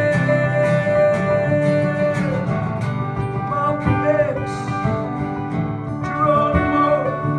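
Two acoustic guitars playing together in an instrumental passage of a live folk song, steady strummed and picked chords.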